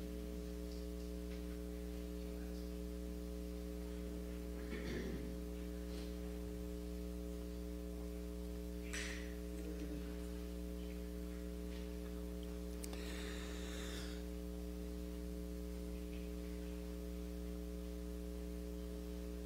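Steady electrical mains hum, with a few faint brief noises about five, nine and thirteen seconds in.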